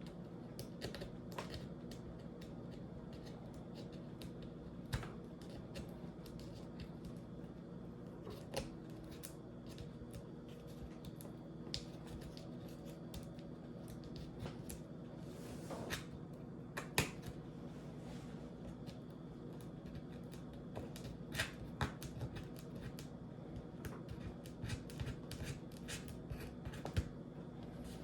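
Scattered small clicks and taps of hand tools and small parts being handled while working inside an open laptop, over a steady background hum.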